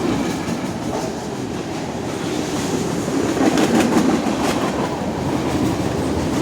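CSX freight train rolling past close by: a steady rumble of wheels on rail, with a run of sharp wheel clacks about halfway through.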